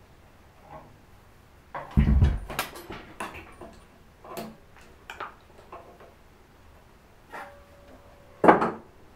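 Metal hand tools and parts clanking and knocking as they are handled, with a heavy thump about two seconds in, scattered clicks and clanks after it, and a loud clank near the end.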